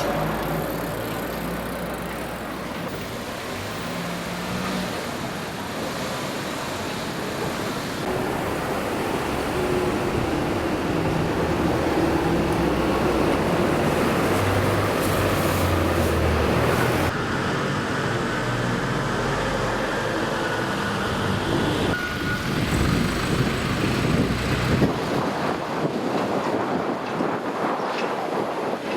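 Road traffic: cars and trucks passing, a steady noisy rumble that changes abruptly several times, as the scene cuts from one street to another.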